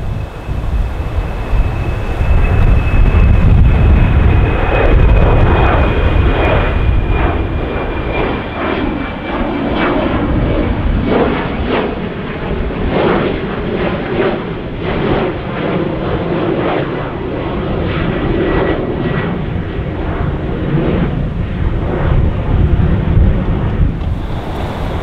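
Jet airliner engines at take-off power as the aircraft climbs out past, with a steady loud rumble. A high whine slowly falls in pitch over most of the stretch, and an uneven pulsing crackle runs through the noise.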